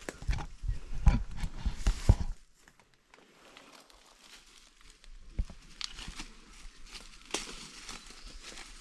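Irregular thuds and crackling rustles for about two seconds, then an abrupt drop to faint crackling and rustling with a few clicks.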